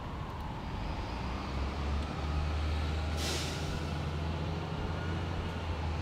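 City street traffic: a heavy vehicle's engine running with a low, steady rumble, and a short, sharp hiss about three seconds in from a truck or bus air brake.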